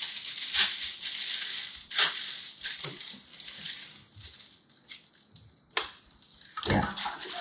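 Spatula scraping whipped cream out of a stainless-steel Thermomix mixing bowl: rasping strokes with a few sharp knocks against the bowl, and a louder clatter near the end.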